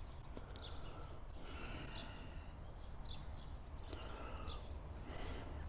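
Birds chirping now and then in short high calls over a steady low background hum.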